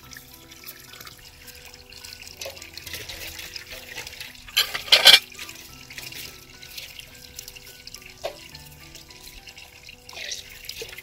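Spring water running from a pipe spout into a rocky stream, a steady trickle, under soft background music. A short, louder rush of noise comes about halfway through.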